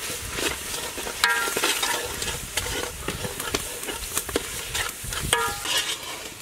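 Metal ladle stirring and scraping a spice paste frying in oil in a metal pot, with a steady sizzle under many short scrapes. Twice the ladle gives a brief ringing squeal on the pot's metal.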